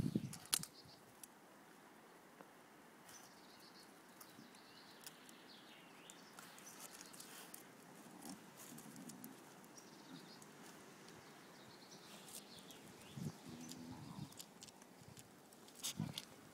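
Faint scratching and rustling as a dog scrabbles at tree bark and tugs at a hanging vine, with scattered light clicks and a few louder short sounds near the start and near the end. Faint bird chirps in the background.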